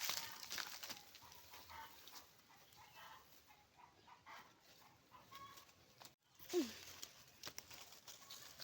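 Domestic chickens clucking softly in short, faint calls, with one louder short call falling in pitch just after a break about six seconds in.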